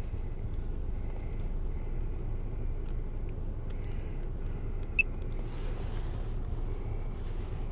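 A car engine idling steadily, heard from inside the cabin as a low rumble just after being started. A single short high beep sounds about five seconds in.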